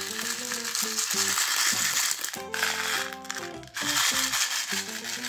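Background music with a simple stepped melody, over a dense crackling rattle of small plastic pearl beads being shaken out of a plastic tub. The rattle comes in two spells, broken by a short pause about halfway through.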